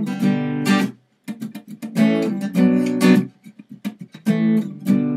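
Acoustic guitar strumming the B minor, A, G chord riff of the song's intro. Ringing chords alternate with quick muted, choppy strokes in a steady rhythm.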